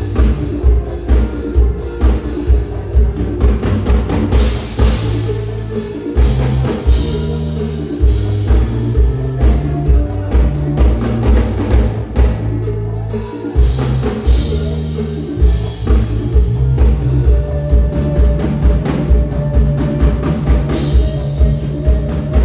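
Instrumental band music with a drum kit and bass keeping a steady beat of about two beats a second.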